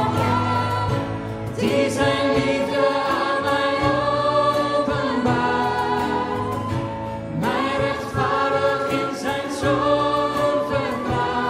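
A choir singing a hymn in long, held phrases of a few seconds each.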